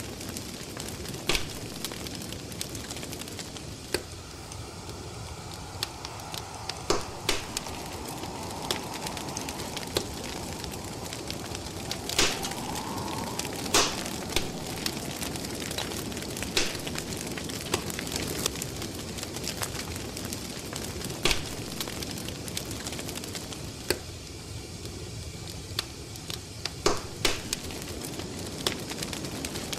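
Crackling wood fire: a steady low hiss with irregular sharp pops every second or two.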